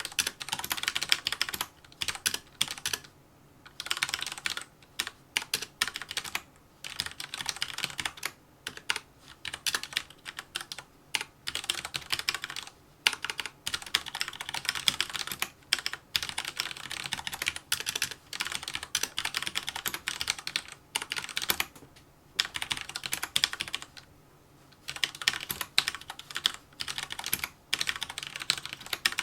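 Fast touch-typing on a mechanical keyboard with red (linear) switches: rapid, dense keystroke clicks in runs of a few seconds, broken by short pauses.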